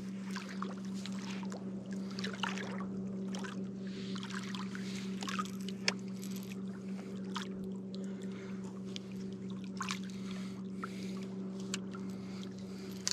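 A boat motor running at a steady low hum, with scattered sharp clicks and short splashy hisses over it while a fish is brought in.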